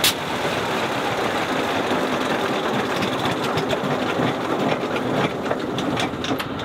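Sopwith Pup's engine running briefly and unevenly after a hand-propped start, with irregular popping that thins out as it winds down and quits near the end. The crew put the dying runs down to the engine not drawing enough fuel.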